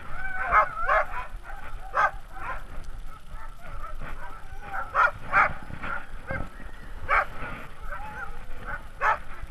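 A team of sled dogs barking, yipping and whining together: many overlapping high, wavering calls, with short sharp barks every second or two.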